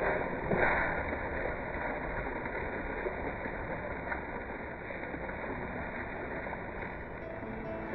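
Steady rushing outdoor noise of wind and rain, with a louder short rush about half a second in.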